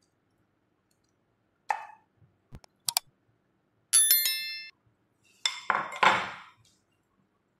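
Subscribe-button animation sound effects: a short swish, then sharp clicks. About four seconds in a bright bell chime rings briefly, followed by two short noisy swishes.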